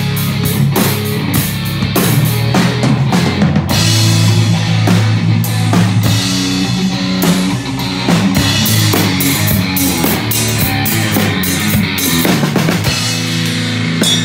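A small rock band playing live: a drum kit keeps a steady beat under electric guitar and electric bass played through small amplifiers.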